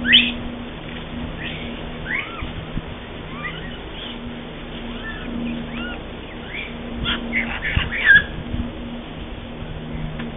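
Japanese macaques giving short, arched coo calls, scattered through and clustering about seven to eight seconds in. The loudest calls come right at the start and about eight seconds in.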